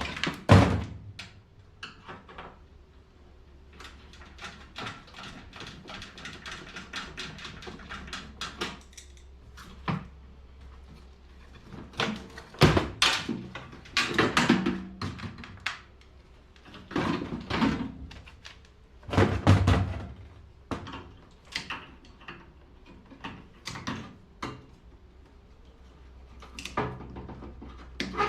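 Clanks, knocks and rattles of metal parts as a microwave oven is taken apart with hand tools. A run of quick clicking comes about four to nine seconds in.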